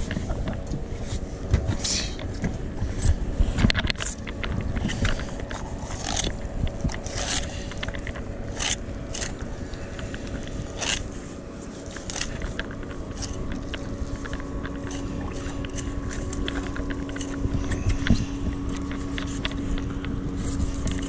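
Fillet knife scraping and cutting through a tautog (blackfish) on a plastic cutting board: irregular scrapes and clicks, over a steady low hum.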